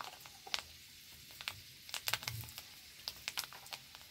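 Hot oil in an iron karahi frying something small, crackling and popping irregularly over a faint sizzle.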